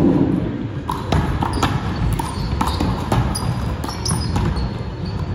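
One-wall handball (wallball) rally: the small rubber ball struck by hand against the wall and bouncing off the hardwood court, a string of sharp smacks about twice a second that ring in the large hall.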